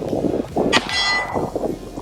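A single sharp metallic strike a little under a second in, followed by a bright ringing that fades within about half a second: a steel target plate ringing from a bullet hit.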